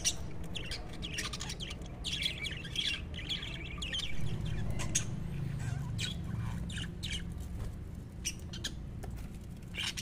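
A flock of budgerigars chattering, with many quick, high chirps and squawks over a low, steady background rumble.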